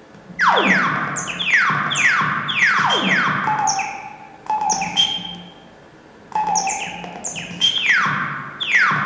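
Electronic sound-effect tones: a rapid series of laser-like zaps, each falling steeply in pitch over about half a second, overlapping one another with short high beeps mixed in. They start about half a second in and lull briefly about two-thirds of the way through.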